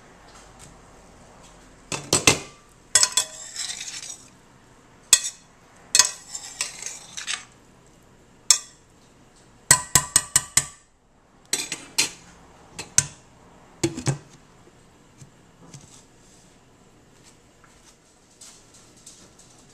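Glass lid taken off and set back on a stainless steel sauté pan, and a slotted metal spoon clanking against the pan while stirring vegetables. It makes a string of sharp clinks and clatters in clusters, which die away after about fourteen seconds.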